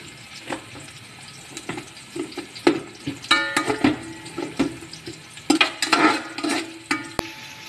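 A metal spoon scraping and clinking against an aluminium pot as chopped garlic, onion and chilies are stirred in sizzling oil. The strokes come irregularly, busiest around the middle and again just before the end.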